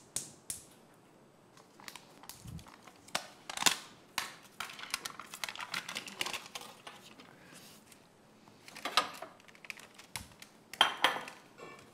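Kitchen handling sounds: scattered clicks and taps of utensils against dishes, with a stretch of rustling in the middle, as margarine and oil are put on potatoes in a baking dish.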